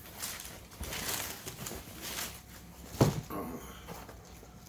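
Rustling handling noise, with one sharp knock about three seconds in.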